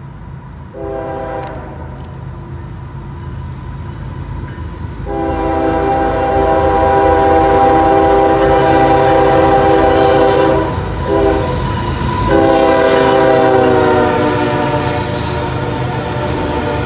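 Norfolk Southern freight locomotive's air horn sounding a series of blasts, long, long, short, long, the standard warning for a grade crossing, over the growing rumble of the approaching train. The horn's pitch drops during the last blast as the locomotive passes, and then the tank cars rumble by.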